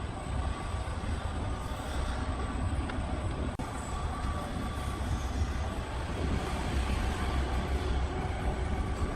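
Heavy machinery running with a steady low rumble and a mechanical hum, interrupted by a very brief dropout about a third of the way in.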